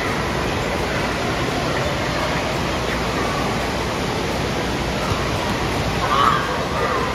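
Steady rushing noise of an indoor water park pool: running water and splashing, with voices echoing faintly in the hall. A brief wavering shout rises above it about six seconds in.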